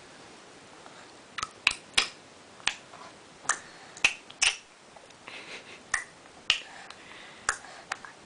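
Tongue clicks made by a small child: about a dozen sharp, short clucks at an irregular pace, some in quick pairs, starting a second or so in.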